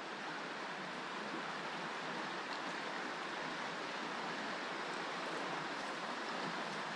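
Steady sound of river water running.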